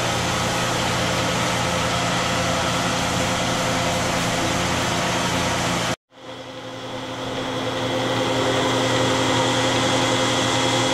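Steady mechanical hum of a milking-station vacuum pump running at a constant pitch. It cuts out abruptly about six seconds in, then comes back and builds up over a couple of seconds, with a slightly different tone.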